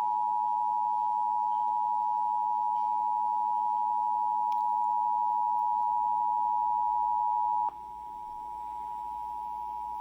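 Emergency Alert System attention signal: a steady two-tone alarm held on one pitch. About three-quarters of the way through it drops suddenly in loudness and carries on more quietly.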